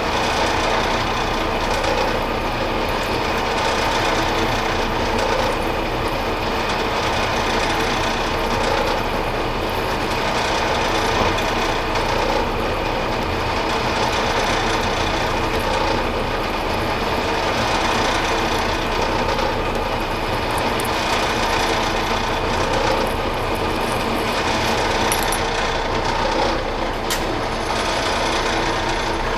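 Metal lathe running in back gear at about 100 RPM while a parting tool cuts through the last of a turned bushing: a steady mechanical running and cutting noise with a faint swell about every two seconds.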